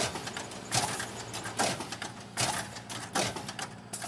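A recorded sound effect played back from a pad controller: a pattern of sharp bursts about every 0.8 seconds over a steady low hum, which cuts off suddenly just after the end.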